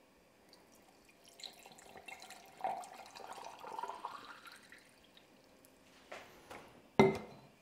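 Liquid poured from a bottle into a PC water-cooling loop's clear cylindrical reservoir, the pour rising in pitch as the reservoir fills. Near the end come two sharp knocks, the second the loudest.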